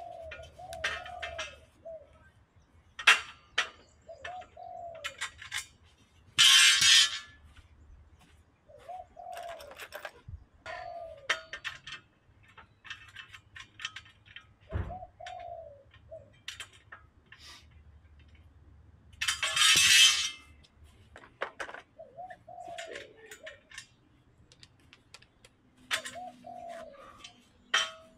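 A dove cooing over and over in short repeated calls, with scattered metallic clicks and knocks of hand tools and hardware. Two loud bursts of rushing noise, each about a second long, come about a third of the way in and again past the middle.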